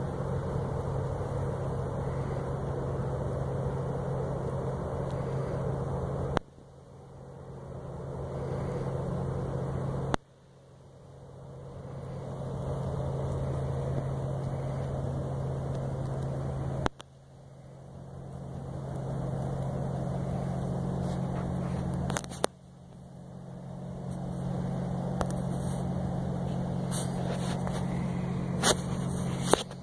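A steady low mechanical hum, broken four times by a sharp click after which it drops away and slowly swells back. Near the end, clicks and rubbing as the phone is handled.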